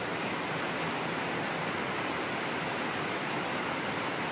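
Steady rushing noise of heavy rain and a swollen, flooding river.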